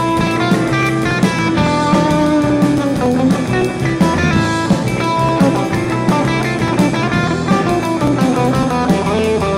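Live rock band playing an instrumental passage: electric guitars over a drum kit, with a melody line gliding down in pitch twice.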